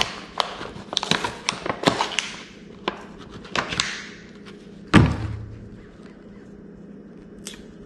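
Handling knocks and taps on the wooden kayak deck as the hatch cover is tried on the freshly sealed hatch opening: a quick string of light knocks, then one heavier thunk about five seconds in.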